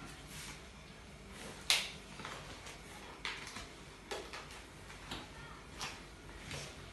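A hand mixing and kneading chicken pieces in a yogurt marinade inside a plastic bucket: faint, short wet handling sounds and light knocks about once a second, the sharpest a little under two seconds in.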